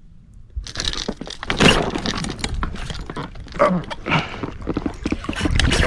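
A sudden, loud commotion starts about a second in, full of knocks and clatter, as a big catfish takes the bait and is fought from a float tube. It is water splashing together with rod and gear handling noise.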